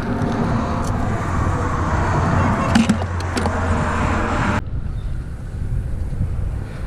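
Road traffic: a steady rush of cars passing with a low hum and a few light clicks. About two-thirds through, the higher rush cuts off suddenly, leaving a duller rumble.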